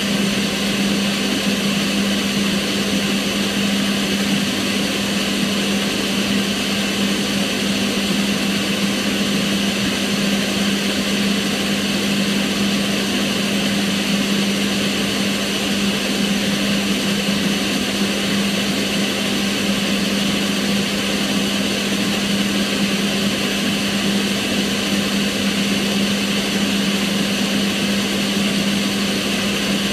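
Kitchen range hood's extractor fan running steadily: an even rush of air over a constant low motor hum, with no change in speed.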